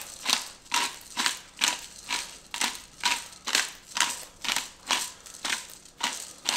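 Black peppercorn grinder being twisted, crunching peppercorns in even strokes about two a second.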